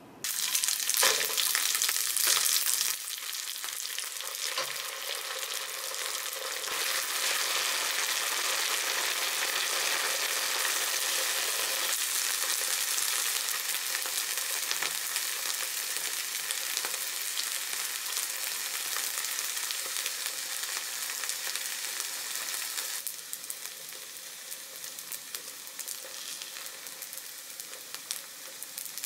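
Rice and red sauce sizzling on a hot tabletop hot plate. The sizzle starts abruptly and is loudest for the first three seconds, then holds steady and drops lower about 23 seconds in.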